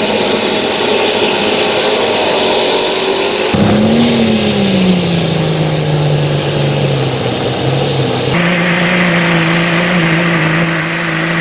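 Engines of pulling tractors and trucks running hard under load, heard in short clips joined by sudden cuts. The sound changes abruptly twice. In the middle clip the engine's pitch drops and then holds steady.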